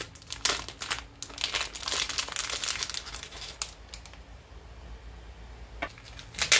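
Clear plastic packaging bag crinkling and rustling in the hands as an accessory is unwrapped, in dense bursts that die away about four seconds in. Two sharp clicks near the end, the second the loudest.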